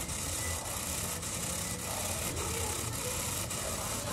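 Two SG90 plastic-geared micro servo motors whirring as they sweep small wiper blades back and forth, with a faint tick a little under twice a second as the sweeps turn.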